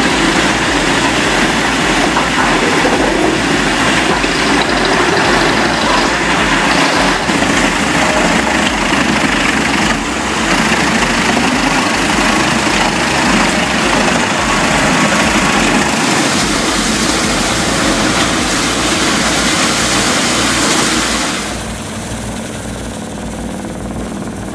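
Large truck-mounted wood chipper with a MAN diesel engine, running under load as logs and branches are fed in and cut into chips: a dense, steady mix of engine and chipping noise. About 21 seconds in it drops off to a lower, duller running sound.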